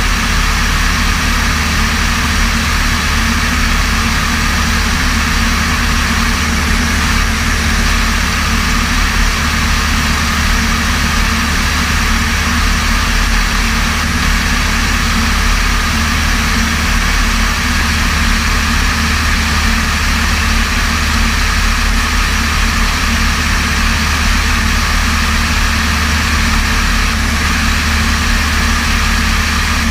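Light propeller aircraft's piston engine running steadily in cruise, a constant low drone with airflow noise over it and no change in power.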